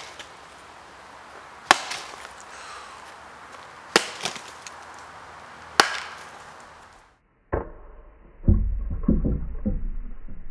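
A baseball bat smashing fruit on a wooden stump: three sharp whacks about two seconds apart. After a brief gap, a duller, muffled thud and then a longer, loud rumbling, crackling stretch with no treble.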